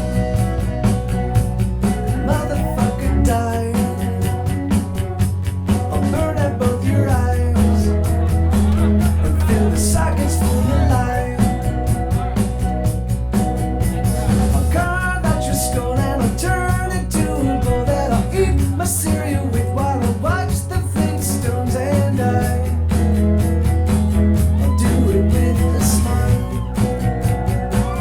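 A rock song playing at a steady loud level: a bass line that steps between a few held low notes every few seconds, with drums and guitar.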